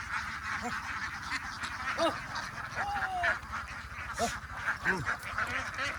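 A flock of domestic ducks quacking. About five separate short calls stand out over a steady chatter of many birds, with a low rumble underneath.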